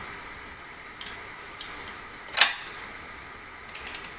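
Metal air rifle parts being handled on a workbench: a few light clicks and one sharper metallic clink with a brief ring about two and a half seconds in.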